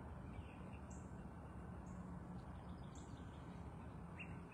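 Small birds chirping faintly every second or so, short high notes and brief falling chirps, over a steady low rumble of background noise.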